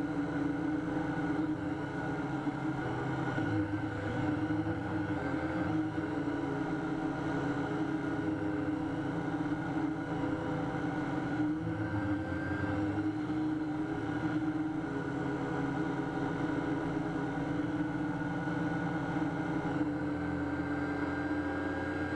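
Syma X8C quadcopter's motors and propellers whirring steadily, picked up by the camera mounted on the drone itself. The pitch shifts slightly now and then as the throttle changes.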